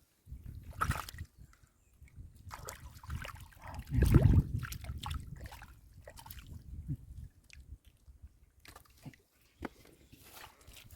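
Irregular sloshing and splashing in shallow muddy water, with scattered wet clicks and slaps; the loudest splash comes about four seconds in.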